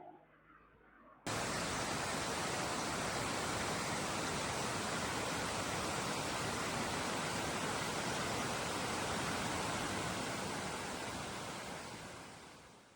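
Waterfall's steady rush of water, cutting in suddenly about a second in and fading out over the last couple of seconds.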